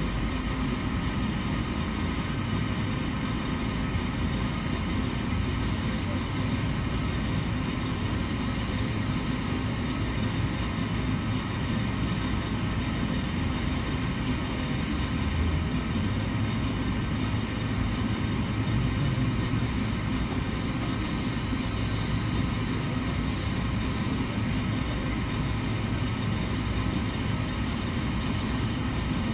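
A steady low rumbling drone, like machinery running, holding at an even level throughout.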